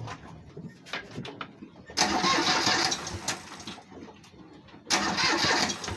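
Boat engine being cranked by its starter in two bursts, the first about two seconds long and the second about a second, with a few light clicks before; the engine does not catch.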